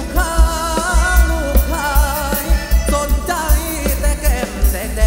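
Thai ramwong dance music from a band, loud over a PA: a singer carrying a wavering, vibrato-laden melody over a steady bass beat.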